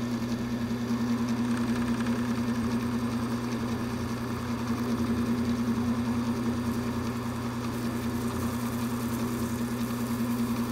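Taig micro lathe running, its belt-driven electric motor giving a steady hum, while the cutting tool takes light cuts to true up a spinning wax rod.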